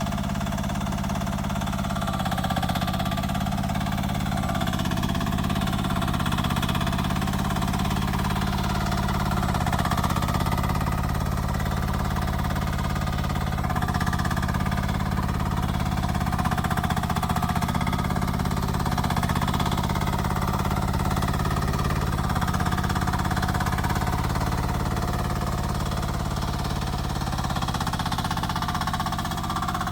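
Mini excavator engine running steadily, its pitch dipping and recovering every few seconds as the hydraulics take load while digging.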